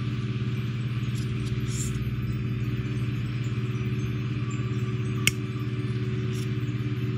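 Small airbrush compressor running with a steady low hum and a fast pulse. A single sharp snip of flush cutters cutting plastic comes about five seconds in.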